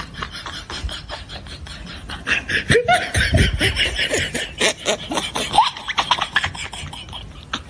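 Laughter: a run of rapid chuckles that gets louder about two seconds in.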